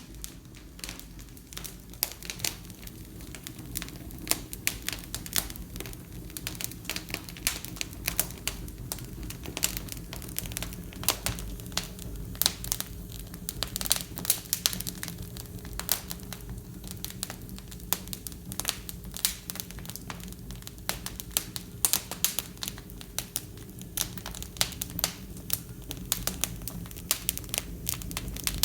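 Wood fire burning in a fireplace, crackling and popping irregularly, several snaps a second, over a steady low background.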